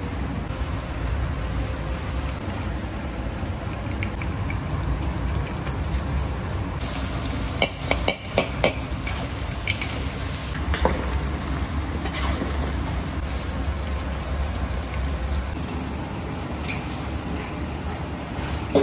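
Meat and onions sizzling as they fry in a metal pot, stirred with a metal ladle that scrapes and knocks against the pan, with a short cluster of sharp clinks a little before halfway through.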